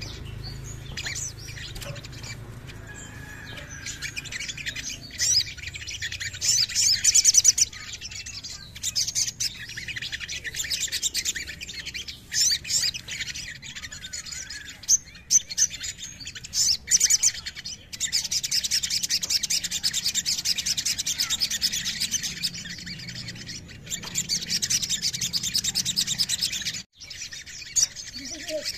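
Male olive-backed sunbird singing: rapid, high-pitched rattling trills broken by sharp chirps, the trills running long and unbroken through the second half.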